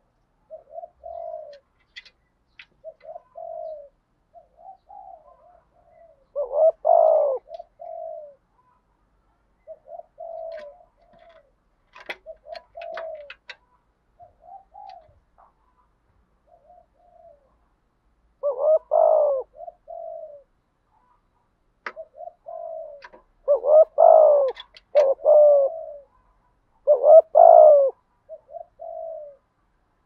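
Spotted dove cooing: soft low coos repeated throughout, with louder full calls of a few notes each about a quarter of the way in, past the middle, and in a quick run near the end.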